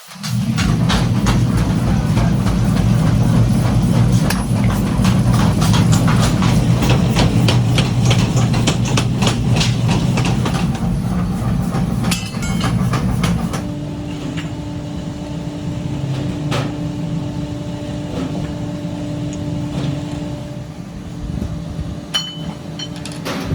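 Metalworking machinery running with a dense clatter of rapid metal knocks. About halfway through, the sound cuts to a quieter steady machine hum with occasional taps.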